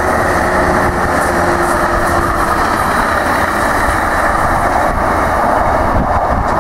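Tri-Rail commuter train passing at speed close by: a diesel locomotive, then bilevel coaches, with a steady loud rush of wheels on rail.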